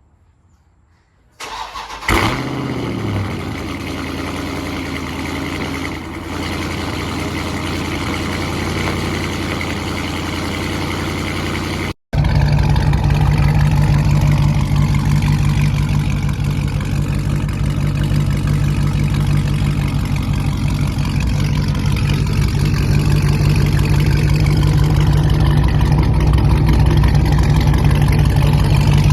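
Dodge Charger Scat Pack's 392 (6.4-litre) HEMI V8, exhausting through catless mid-pipes, starting up about two seconds in and settling into a steady run. After a brief cut near the middle it is heard again running steadily and louder.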